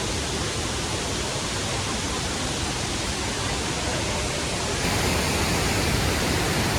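Steady rushing of a large waterfall, an even wash of falling water with no break; it gets slightly louder and brighter about five seconds in.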